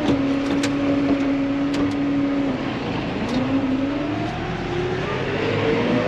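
Massey Ferguson 4355 tractor's diesel engine heard from inside the cab, running at a steady pitch, dipping about two and a half seconds in, then revving gradually higher as the tractor pulls away.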